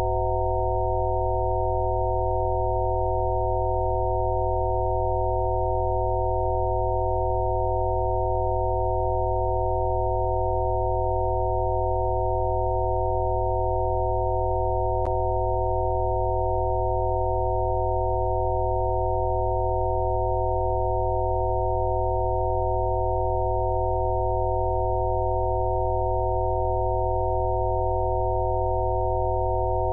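Electronically generated Rife-frequency sine tones: several steady pure tones sounding together as an unchanging drone, with a lower tone underneath. A single brief click about halfway through.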